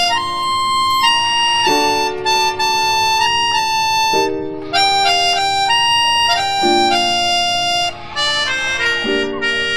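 Background music: a melody of held notes over sustained chords that change every two to three seconds.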